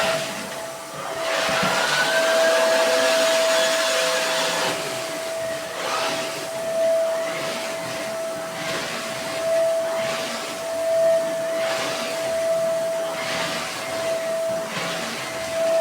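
Vacuum cleaner with a turbo brush running: a steady motor whine with a rush of air that swells and fades about once a second.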